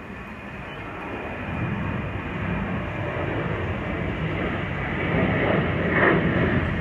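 Jet engines of a Virgin Australia Boeing 737 climbing out after takeoff: a steady rushing roar that grows louder as the plane passes overhead.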